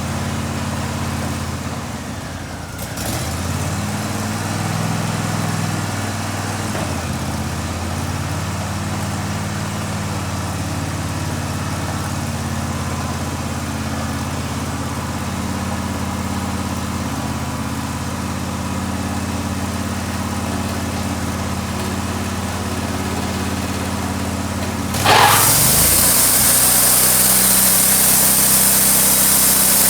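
Sawmill engine running steadily, with a brief dip in pitch about 2–3 seconds in. About 25 seconds in the sound suddenly gets louder and a high hiss sets in as the saw starts cutting wood.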